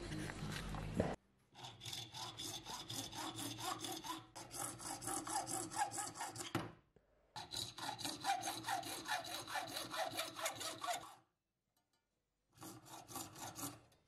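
Hacksaw cutting through a thin brass rod clamped in a vise: rapid back-and-forth strokes in three runs, with two short pauses between them.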